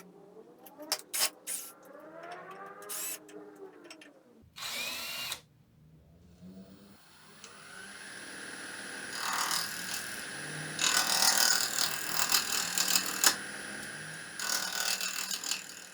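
A power tool working wood starts up about seven seconds in and runs with a steady whine, growing loud and rough in spells from about nine seconds on. Before it, in the first few seconds, a cat meows several times.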